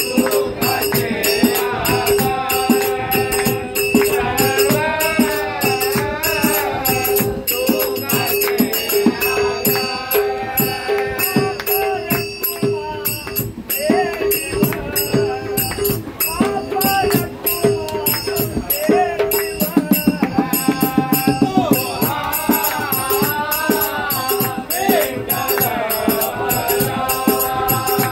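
Group of men singing a devotional bhajan in unison, led by one voice, with small brass hand cymbals (taal) clashing in a steady quick rhythm and a hand drum keeping time. About twenty seconds in, the drum plays a fast roll.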